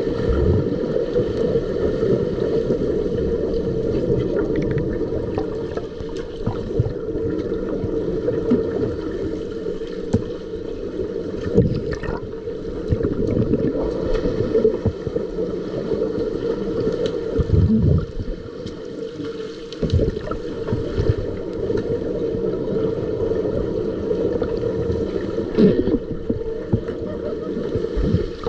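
Muffled underwater pool noise picked up by a submerged camera: a steady drone with swirling, bubbling water stirred by swimmers' fins, broken by occasional dull knocks.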